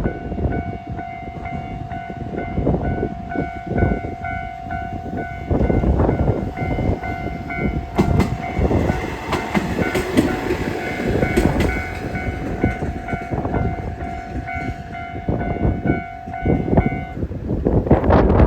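Railway level-crossing alarm ringing its standard repeating ding about twice a second while a train passes, with rumble and clacking of wheels over rail joints. The alarm stops about a second before the end, and the train noise carries on.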